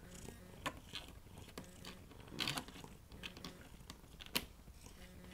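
Scattered light clicks and rustles from a cat climbing and pawing close to the microphone, with a denser patch of soft clicking midway and one sharp click a little after four seconds in.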